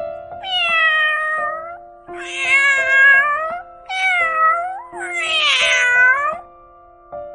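Domestic cat meowing four times: long, drawn-out meows, each sliding down in pitch. Background music with held notes plays underneath.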